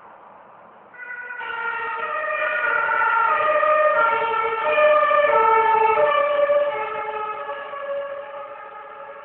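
Two-tone emergency-vehicle siren (German Martinshorn) passing in the street, alternating between a high and a low note, each held a little over half a second. It comes in loud about a second in, peaks midway and fades toward the end.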